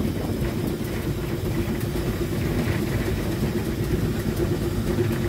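Beyer-Garratt narrow-gauge steam locomotive running, heard from its footplate: a steady rumble with a constant hum underneath, and one sharp knock right at the start.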